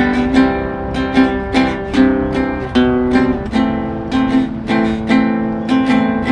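Acoustic guitar strummed and picked in a steady rhythm of about two to three strokes a second, playing a song accompaniment with no voice.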